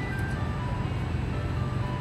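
Retro hot food vending machine playing its simple electronic jingle, one plain note after another, while it cooks an order, over a steady low machine hum.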